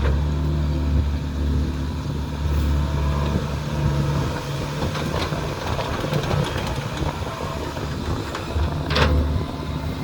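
Diesel engine of heavy earthmoving machinery running steadily, easing off in the middle with some clatter, then picking up again. A short sharp noise comes about nine seconds in.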